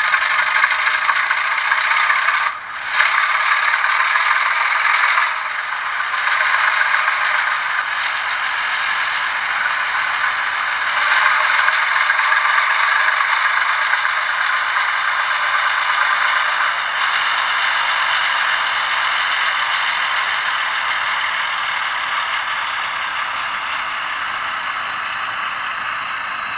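Recorded ALCO 251 turbocharged diesel prime mover sound from a TCS WOW DCC sound decoder, played through a model locomotive's small speaker as the throttle is opened. The engine runs on steadily with no deep bass, dips briefly about three seconds in, and fades a little toward the end.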